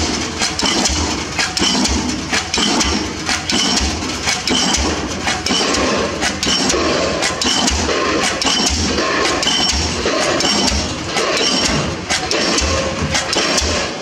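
Diesel pile hammer driving a pile, striking at a steady rhythm of about one blow a second, each blow a heavy thud with a ringing metallic clank.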